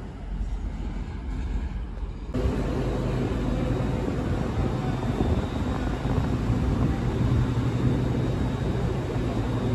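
CrossCountry Voyager diesel train's engines running, a steady low drone with a faint high whine. Before it starts, about two seconds in, there is a quieter stretch of station background noise that cuts off abruptly.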